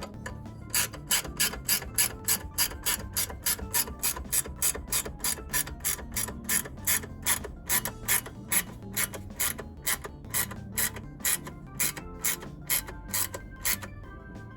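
Ratchet wrench clicking in a steady run of about three to four clicks a second, with a few short pauses near the end, over background music.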